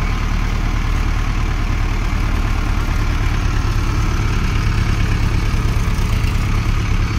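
Farm tractor's diesel engine running steadily, with a deep, even engine note.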